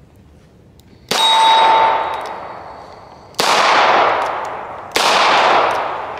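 Three single shots from a Taurus 692 Tracker revolver, fired slowly with a second or two between them, each trailing off in a long echo. A short ringing tone follows the first shot.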